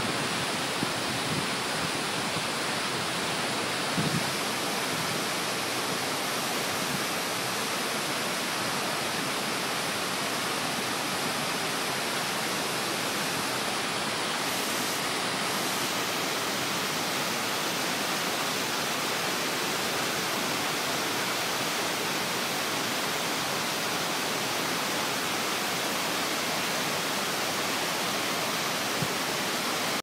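Cusarare Falls, a tall waterfall pouring down a rock face and crashing into its pool: a steady, unbroken rush of water. A brief low thump about four seconds in.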